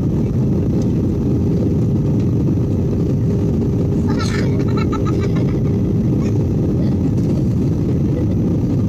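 Jet airliner cabin noise on approach with flaps out: a steady rumble of engines and rushing air, with a faint steady hum that fades about seven seconds in.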